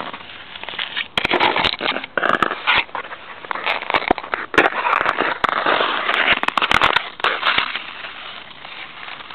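Ice skate blades scraping and cutting across rough natural ice close to the microphone: a loud gritty hiss broken by many sharp clicks and crackles, easing off near the end.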